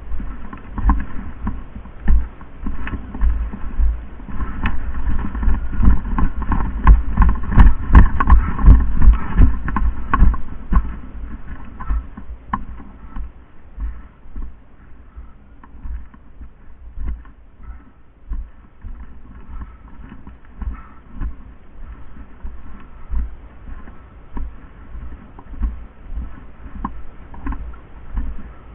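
Irregular thumps and rattles of a player moving on foot, loudest and densest for several seconds in the first half, with sharp clicks among them.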